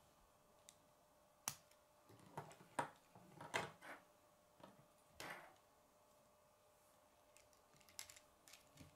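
Plastic K'nex rods, connectors and gears clicking and rattling as they are handled and snapped together. The clicks are short and scattered, with a few louder snaps between about one and a half and five and a half seconds in.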